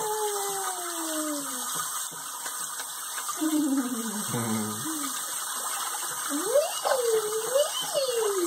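Kitchen faucet spray running steadily into a sink of bathwater. Over it, a baby makes high wordless sounds that glide down in pitch, with a few rising-and-falling ones near the end.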